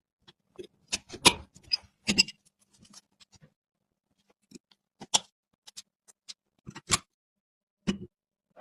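Irregular sharp clicks and taps of hands handling PC hardware and packaging, with a brief rustle near the end.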